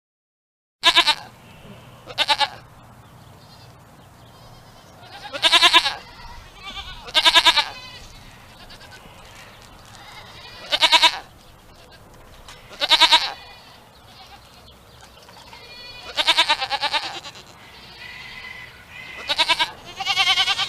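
Goat bleating repeatedly: about nine short, wavering bleats a second to several seconds apart, the last two coming close together near the end, over faint steady background noise.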